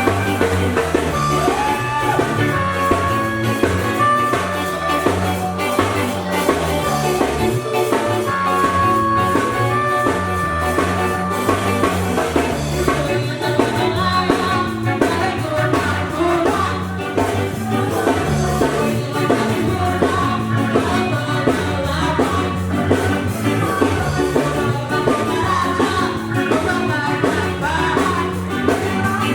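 Ska band playing a song, with drum kit, bass and guitar under a sung vocal line.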